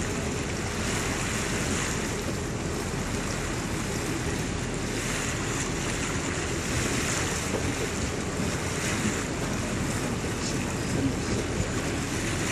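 A tour boat under way through a harbour: a steady rush of wind on the microphone over water noise and the low hum of the boat.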